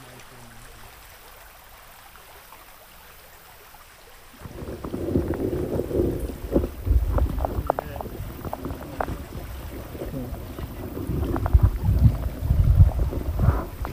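Underwater sound picked up by a submerged action camera: a loud, muffled low rumble of moving water with many sharp clicks and knocks, starting suddenly about four seconds in after a stretch of quiet river ambience.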